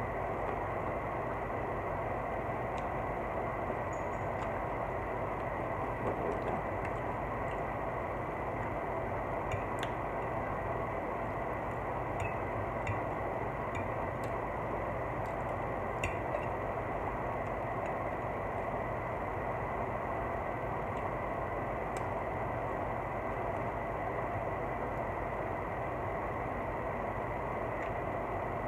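A steady mechanical hum with a thin high whine, unchanging throughout, like an idling engine or an appliance running. A few faint clicks of eating are heard now and then.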